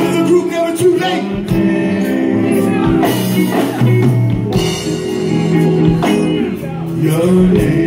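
Live band playing, with several male vocalists singing into microphones over keyboards and drums, amplified through a stage PA system.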